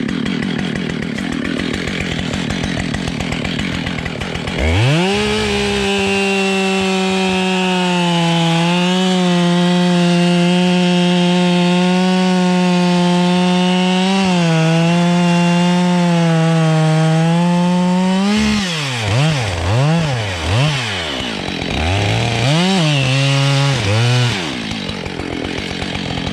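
Husqvarna 572 XPG two-stroke chainsaw, still new and not yet run in, held at full throttle for about thirteen seconds with its pitch dipping slightly now and then, as in a felling cut through beech. It is then blipped up and down several times before dropping back toward idle.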